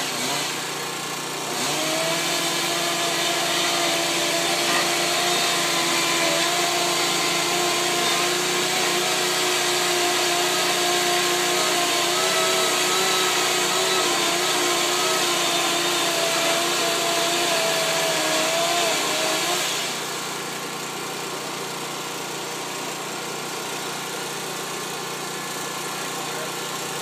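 An engine running steadily at a high, even speed together with a loud hiss. It stops about 20 seconds in, leaving a quieter steady rumble of engines in the background.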